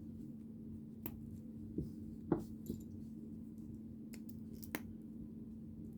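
Plastic building-toy pieces being handled and snapped together: a handful of short, sharp clicks, the loudest about two and a half seconds in, over a steady low hum.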